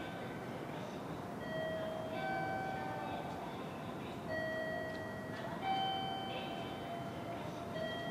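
A series of long, steady ringing tones that step back and forth between two or three pitches, each held for about a second, over a low background hum.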